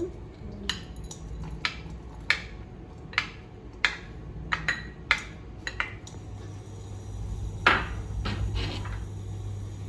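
A spoon knocking and scraping against a frying pan, giving about ten sharp clinks at irregular spacing, the loudest about three-quarters of the way through. A low steady hum runs underneath.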